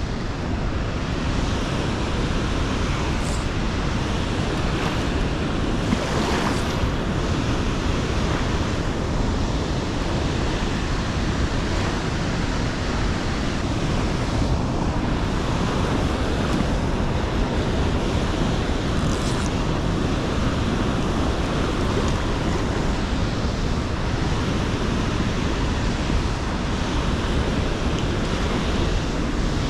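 Steady rush of a fast, high-running tailwater river.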